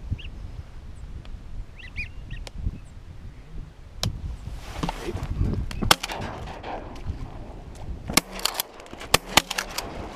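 Shotgun blasts during a duck hunt: a strong shot about six seconds in, then several more in quick succession near the end, as the hunters fire at passing ducks. A few short, high whistled calls come before them.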